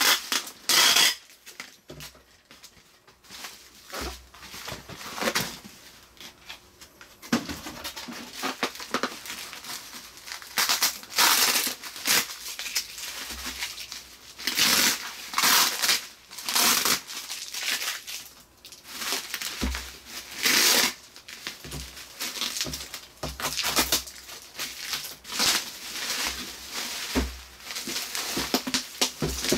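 Plastic bubble wrap and air-cushion packaging crinkling and rustling as it is handled and unwrapped, with packing tape being peeled off. It comes in irregular bursts, quieter for a few seconds near the start.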